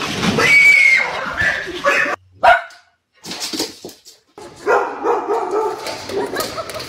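A dog barking, with a couple of short breaks.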